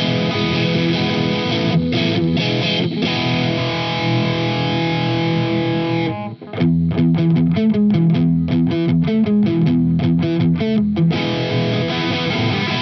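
Bacchus Universe Series Strat-style electric guitar played through a crunch overdrive tone, first on the middle and bridge pickups together, then on the bridge pickup alone from about six seconds in. Ringing chords give way to a run of short, choppy chord stabs, and it rings out again near the end.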